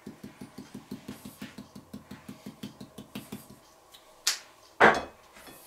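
Curry powder shaken from a spice shaker over a burger: a quick, even rattle of about six or seven shakes a second that stops about three and a half seconds in. Two louder knocks follow, the second the loudest.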